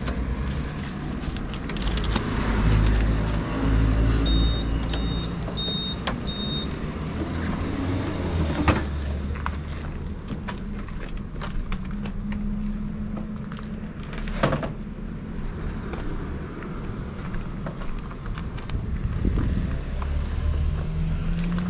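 Honda Super Cub C125's air-cooled single-cylinder engine running on the road, its note rising and falling with speed. Four short high beeps come about four to seven seconds in, and there are two sharp knocks near nine and fifteen seconds.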